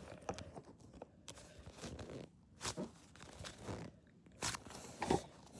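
Faint, soft scrunching of a slow-rising foam squishy toy being squeezed in the hands. There are several short squishes, roughly a second apart.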